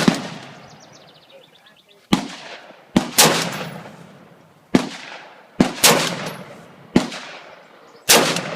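AR-15 rifle in .223/5.56 firing single shots, about nine in all at uneven gaps of one to two seconds. Each is a sharp crack with an echoing tail, and some are louder than others.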